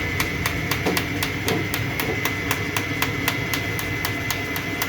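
Bosch common-rail diesel injector being tested on a bench: a steady train of sharp clicks, about five or six a second, as it is pulsed, over a steady whine and the low hum of the rig.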